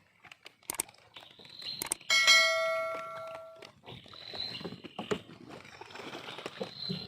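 A single bell-like metallic ring struck about two seconds in, its several tones fading away over about a second and a half. A steady high-pitched buzz and a few light knocks sound around it.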